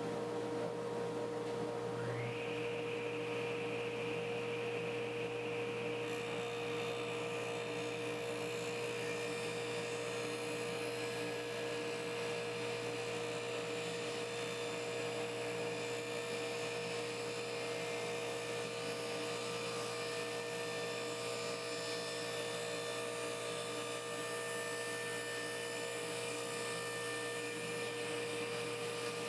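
Shop dust collector running with a steady hum. About two seconds in, a second machine spins up with a rising whine that settles into a steady high tone, and from about six seconds a steady hiss joins in.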